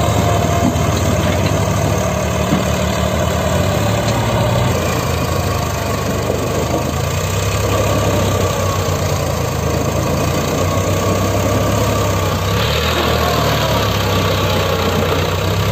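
Eicher 5660 tractor's diesel engine running hard at a steady pitch, labouring under the pull of a fully loaded sugarcane trolley on a slope.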